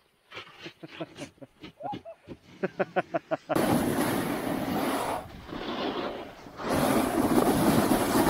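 A run of quick knocks and clatter that come faster, then loud rushing noise in two long spells: wind buffeting the microphone and snow hiss of skiing at speed.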